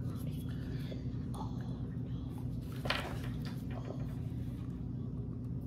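Room tone: a steady low hum with a few faint handling clicks and rustles, the clearest about three seconds in.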